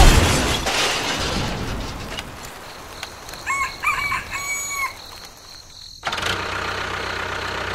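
A rooster crowing once, a call in three parts, about three and a half seconds in. Before it a loud rush of noise fades away, and a steady noise starts suddenly about six seconds in.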